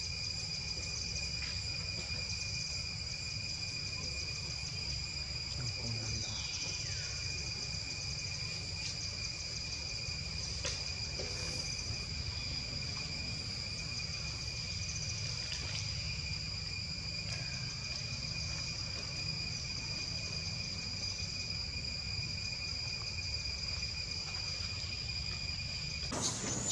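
Insects trilling steadily in one unbroken high-pitched tone over a low background rumble, with a few faint short falling calls; the sound cuts off near the end.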